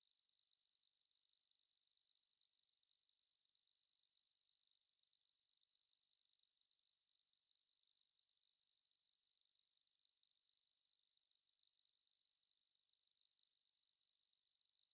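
A steady, high-pitched electronic pure tone held at one unchanging pitch: a synthesized imitation of tinnitus ringing.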